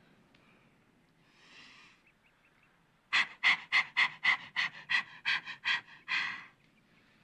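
A woman panting rapidly, a dozen or so short, loud breaths at about three or four a second, after one softer breath.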